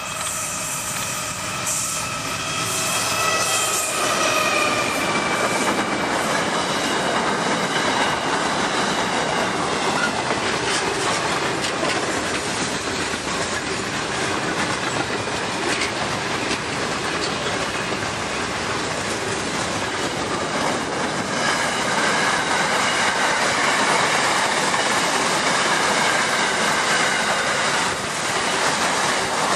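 Pacific National NR class diesel-electric locomotive passing, its tones dropping in pitch as it goes by in the first few seconds, followed by a long freight train of container and skeleton wagons rolling past with steady wheel clatter and rumble and a thin wheel squeal in the later part.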